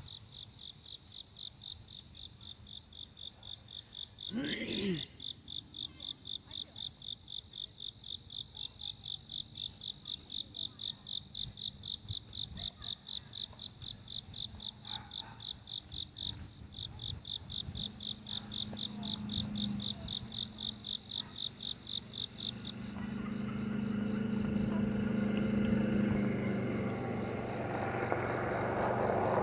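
An insect chirps in a steady, even rhythm of about three high chirps a second, and stops about three-quarters of the way through. Near the end a low engine hum rises and grows louder, like a motor vehicle approaching.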